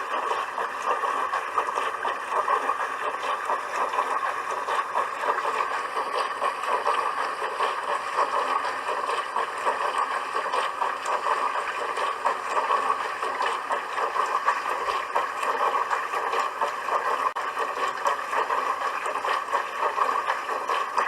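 Dishwasher running, with a steady rush of water spraying and splashing inside the tub.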